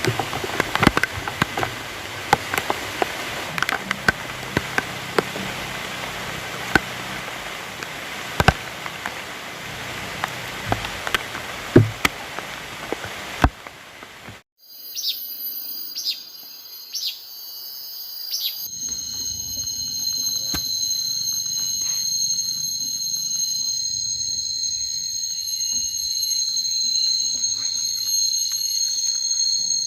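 Heavy rain falling, with many sharp drip taps among the steady hiss. About halfway through it cuts off suddenly, and a steady high-pitched chorus of insects trilling takes over.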